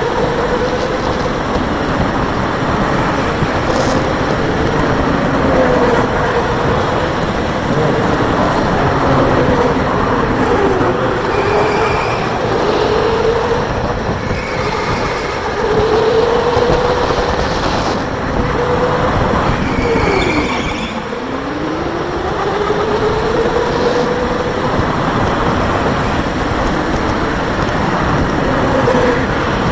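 Electric go-kart driven hard around a track, heard from on board. The motor's whine rises and falls with each burst of speed and each lift for a corner, over a steady rush of wind and tyre noise. About two-thirds of the way through, the whine drops sharply as the kart slows, then climbs again. There are a few brief high squeals along the way.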